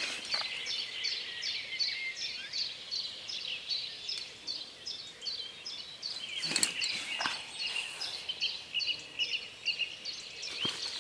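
Dawn chorus of songbirds, with one bird repeating a short high note about three times a second through the other birdsong. A few sharp knocks come a little past the middle.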